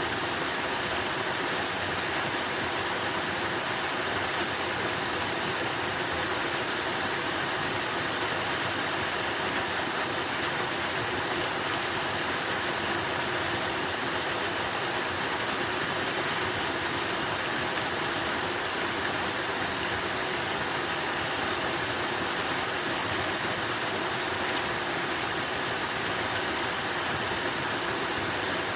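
Running water rushing steadily, an even, unbroken noise with no changes.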